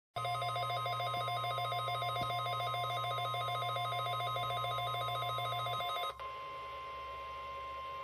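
NOAA weather radio receiver sounding its rapid warbling alert alarm over a steady single-pitch tone, the 1050 Hz warning alarm tone that heralds a weather warning broadcast, here a snow squall warning. About six seconds in the warble cuts off abruptly and the steady tone carries on alone.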